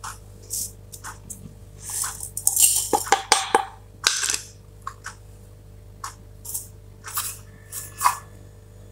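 Plastic spice containers and lids handled on a granite counter. A run of loud clatters and scrapes comes a few seconds in as a plastic lid is moved, followed by small clicks and rustles as a plastic spoon scoops seeds from a tub.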